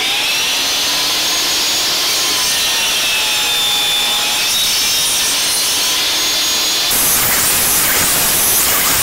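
Table saw running at speed, its blade cutting a corner off a thick teak board pushed through on a sled: a steady motor and blade whine under the rasp of the cut. The sawing grows harsher about seven seconds in.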